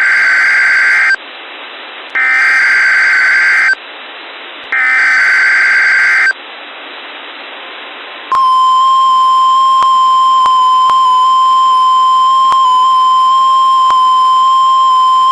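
NOAA Weather Radio SAME header: three bursts of digital data tones, each about a second and a half long, with radio hiss between them. About eight seconds in, the steady 1050 Hz weather radio alert tone starts and holds, broken by faint clicks. These are the Required Weekly Test signals as heard on a weather radio receiver.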